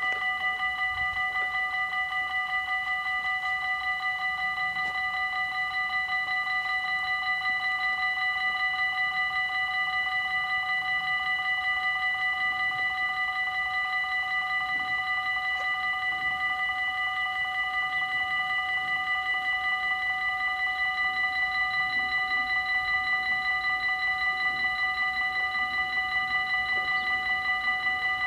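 Dutch level-crossing warning bells ringing steadily in a fast, even clang while the barriers are down, the signal that a train is approaching.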